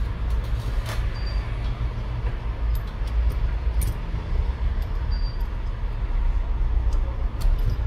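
Steady low background rumble with a few faint, light clicks scattered through it.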